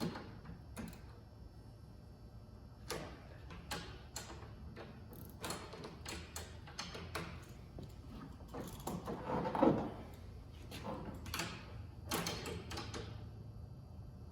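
Irregular metal clinks and knocks of hand tools working the track tension adjusters on a Yeti Snow MX snow bike track, while the track is set to tension. The loudest is a clunk about nine to ten seconds in.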